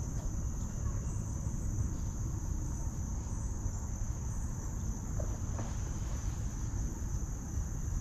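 A steady, high-pitched chorus of insects droning without a break, over a low rumble.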